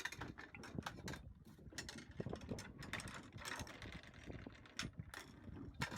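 Fishing reel being wound in while fighting a fish, with irregular, rapid clicking and ratcheting from the reel's gears.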